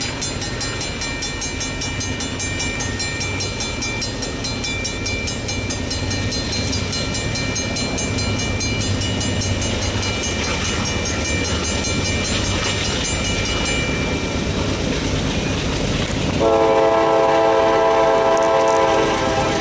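Freight train led by a GE Dash 9-40CW diesel locomotive approaching and passing with a steady low rumble. A high-pitched ringing sits over it and stops about fourteen seconds in. Near the end comes one long blast of the locomotive's multi-tone horn, lasting two to three seconds, the loudest sound.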